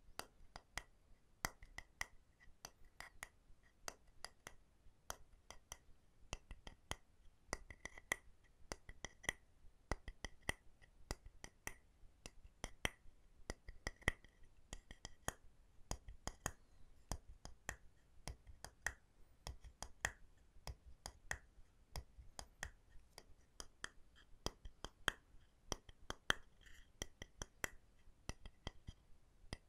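Light tapping on wooden objects for ASMR: quick, uneven taps, several a second, each with a short bright ring.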